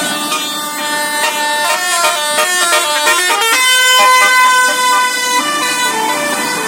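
Basuri telolet musical air horn on a tour bus playing a tune: a run of quick changing notes, then a held chord about half-way through, then a few shorter notes.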